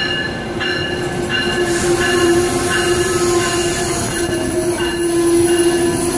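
Amtrak passenger cars rolling past along the platform, with a steady metallic squeal from the running gear over the rumble of the train.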